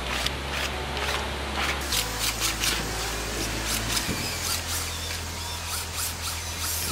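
Battery drill driving a mixing paddle through slurry primer in a plastic bucket, with irregular scraping and clicking as the paddle stirs.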